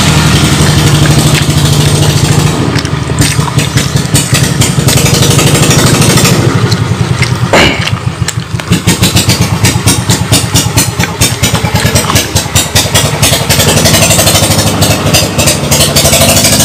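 A small engine running steadily, loud and constant, with a fast even pulse.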